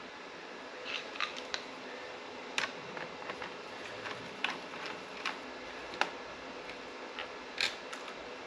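Sparse light clicks and taps, about a dozen spread irregularly, from the power leads' terminals being fastened to a motorcycle battery's terminals, with a faint steady hum underneath.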